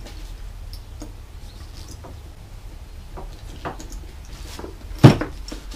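Small clicks and rustles of a leather bag's metal buckle and strap being handled and fastened, with one sharp knock about five seconds in.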